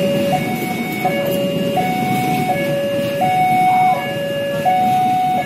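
Railway level-crossing warning alarm sounding its two-tone signal, switching between a lower and a higher note about every 0.7 s. The rumble of the Logawa passenger train's coaches rolling past runs beneath it.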